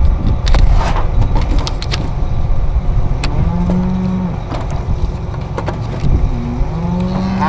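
Cattle mooing: two long low moos, the second starting near the end, over a steady low rumble with a few sharp knocks and clatters.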